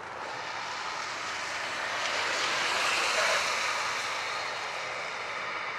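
Four jet engines of a Boeing 747-400 running as it rolls along a wet runway, a steady rushing noise that swells to its loudest about three seconds in and then eases as the aircraft passes.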